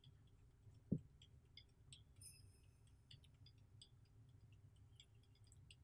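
Near silence: room tone with a few faint scattered clicks and one soft low thump about a second in.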